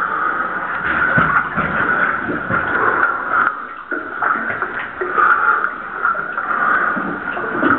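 Water sloshing and splashing close by as a caver moves through the flooded low-airspace passage of a cave sump, in a steady irregular stream of small splashes.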